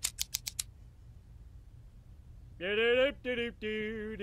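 Scissors snipping hair five times in quick succession. About two and a half seconds in, a high voice holds a few drawn-out notes that step up and down in pitch.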